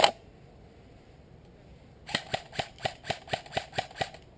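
Airsoft gun firing a quick string of about nine shots, roughly four to five a second, starting about halfway in.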